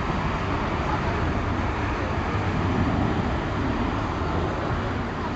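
Boeing 737-800 jet engines running: a steady, even rumble with a broad hiss over it.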